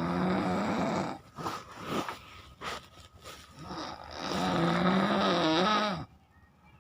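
A person snoring loudly: two long, wavering snores, the first ending about a second in and the second cutting off abruptly near the end, with a few scattered clicks in between.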